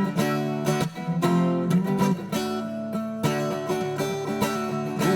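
Music: an acoustic guitar strumming chords in a steady rhythm, the instrumental opening of a song before the vocals come in.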